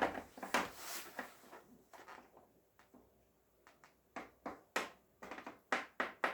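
Scattered clicks and light knocks of small objects being handled and set down on a table, about a dozen irregular taps.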